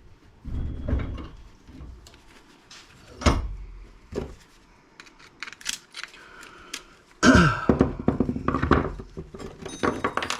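A few dull thunks and knocks of metal parts of a small electric motor being handled and worked apart, with lighter clicks and clatters between them; the heaviest knocks come about a second in, about three seconds in and about seven seconds in.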